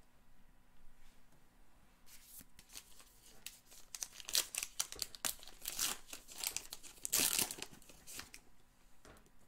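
Plastic wrapper of a baseball card pack being torn open and crinkled by hand: a run of short ripping and rustling sounds starting about two seconds in, loudest about halfway through and again near the end.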